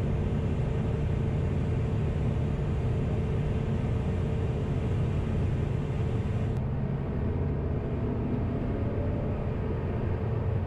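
Sling 4's turbocharged Rotax 914 four-cylinder engine and propeller droning steadily on final approach, heard from inside the cabin. About six and a half seconds in, the high hiss drops away and the drone sounds duller.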